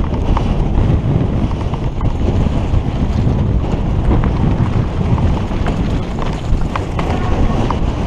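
Heavy wind buffeting a helmet-mounted camera's microphone as a mountain bike descends at speed over a rough, rocky trail, with scattered short clicks and rattles from the ride.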